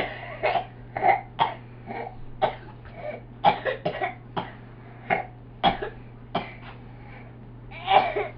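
A child's coughing fit: a long run of short coughs coming one after another, roughly two a second with brief gaps, the loudest at the start and another strong one near the end.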